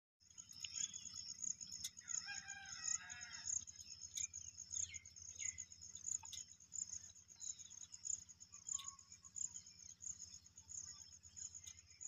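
A rooster crows once, about two seconds in, over a steady high pulsing drone of insects, with a few short bird chirps.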